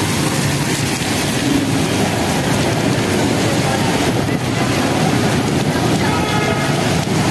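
Heavy rain and passing traffic on a wet road: a steady hiss of rain and tyres on water, with vehicle engines underneath. A pitched engine note joins about six seconds in.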